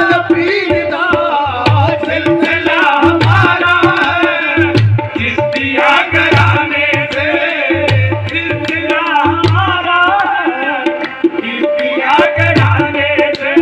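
Live group singing of a devotional song, accompanied by harmonium and a hand drum. Wavering voices sing over held harmonium notes, with a steady drum beat underneath.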